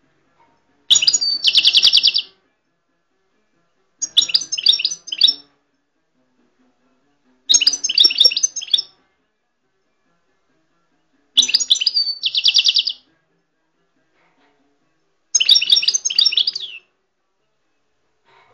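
Caged European goldfinch singing in short high phrases of quick twittering notes, five phrases with pauses of two to three seconds between them; the first and fourth phrases end in a rapid buzzy trill.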